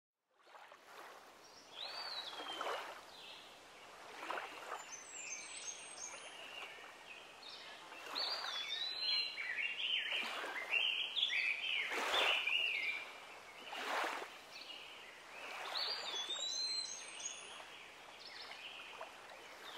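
Several birds calling and singing in short chattering and whistled phrases, over small waves lapping and sloshing at the water's edge every couple of seconds.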